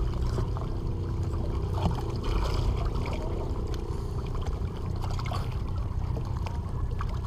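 Shallow seawater sloshing and trickling as a large billfish is handled and moved in it, over a steady low rumble.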